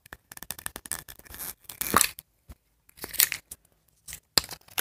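A small shiny packet being torn open by hand: irregular crinkling and tearing rips, with louder rips about two, three and four and a half seconds in.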